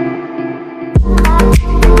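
Background music: sustained tones, then about a second in a heavy beat with deep bass and sharp drum hits comes in.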